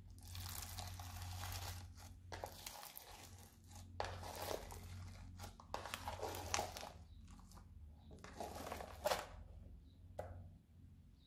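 Foam-bead slime (floam) being pressed, squeezed and pulled from its plastic tub by hand. It gives crackling, crinkling noises in about seven separate bursts of up to a second or so, over a faint steady low hum.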